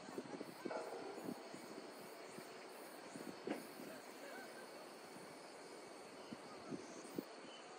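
Quiet outdoor alley ambience with faint, sparse footsteps on pavement and a few scattered light knocks and short high chirps.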